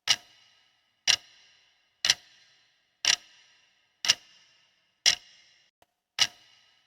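Clock-style countdown timer ticking: one sharp tick about every second, evenly spaced, each with a short ringing tail.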